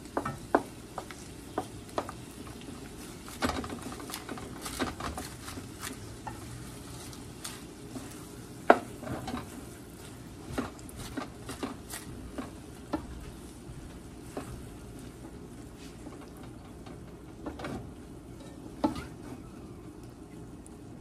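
Wooden spoon stirring and scraping beaten egg in a nonstick pan over a steady frying sizzle, with scattered knocks of the spoon against the pan. The loudest knock comes about nine seconds in.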